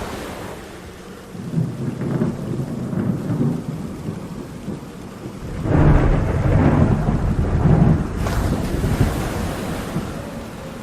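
Thunder rumbling twice over steady rain: a rolling rumble a second or two in, then a louder, deeper peal about six seconds in that lasts a couple of seconds.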